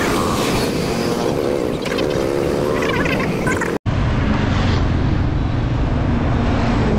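Motorcycle on the move: wind rushing over the microphone and the engine running, its pitch wavering. A sudden cut a little under four seconds in gives way to a steadier low engine and road rumble.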